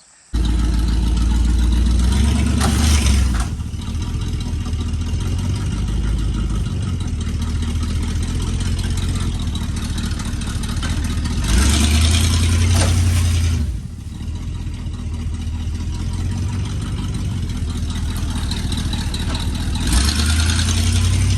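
Old square-body Chevy three-quarter-ton 4x4 pickup's engine running under load, pulling a chained sapling out by the roots. The engine surges three times, about nine seconds apart, each surge lasting a second or two.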